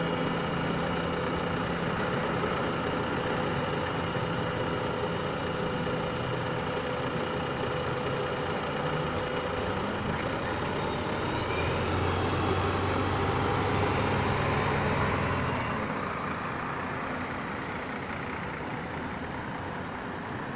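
City buses' diesel engines idling, with a low steady hum. About twelve seconds in, the engine sound swells as one bus pulls away, then fades as it drives off.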